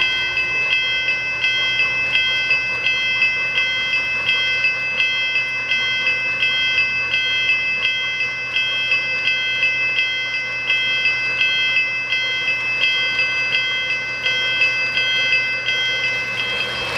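O-gauge model freight cars rolling past on three-rail track, a steady rumble, over a high electronic tone that pulses about three times a second, the bell of a model grade-crossing signal ringing as the train goes by.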